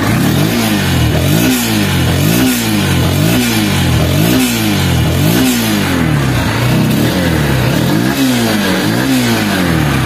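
Honda X-Blade's 160 cc single-cylinder four-stroke engine being revved in repeated throttle blips, about once a second, its pitch rising and falling each time. It runs smoothly, a sign of an engine in good condition.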